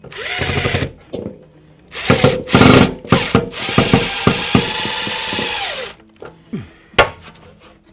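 Cordless drill driving mounting screws: a short run near the start, then a longer run of about four seconds that winds down, followed by a sharp click about seven seconds in.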